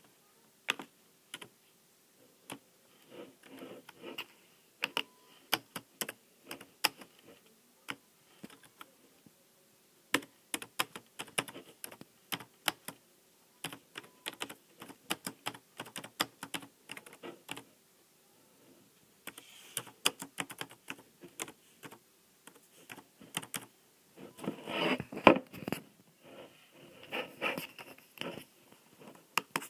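Typing on a laptop keyboard: irregular key clicks in bursts with short pauses, densest and loudest near the end.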